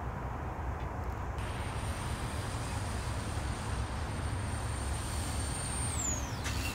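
A steady low rumble, joined about a second and a half in by the thin high-pitched whine of the RC ground-effect vehicle's electric motor, which holds steady and then drops sharply in pitch near the end.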